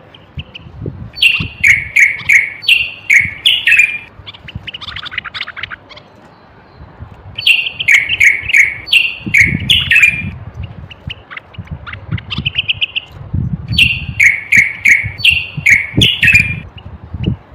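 Common bulbul singing: three loud phrases of quick, falling whistled notes about six seconds apart, with a few softer short calls between them.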